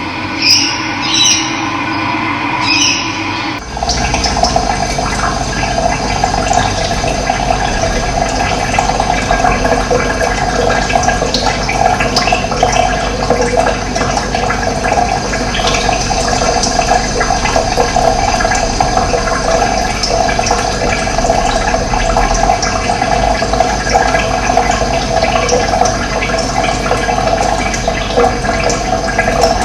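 Running water, a steady, even rush with a low rumble, which starts abruptly about three and a half seconds in. Before it come a few short, high bird chirps over a steady hum.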